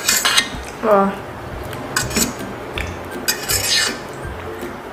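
Metal fork scraping and clinking against a stainless steel tray as it stirs and lifts instant noodles, in several short bursts. A brief squeak falling in pitch comes about a second in.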